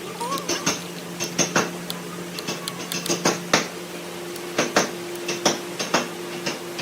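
Irregular sharp knocks and clinks of hand-tool work, such as light hammer taps, over a steady low hum.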